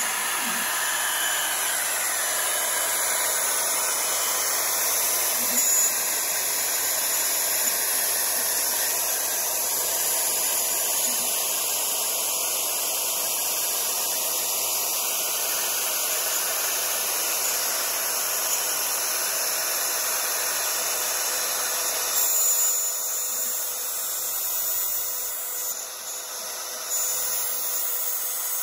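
Desktop CNC router's spindle running at high speed while a 1/8" bit mills through 2 mm aluminium sheet. It makes a steady hissing whine of machining.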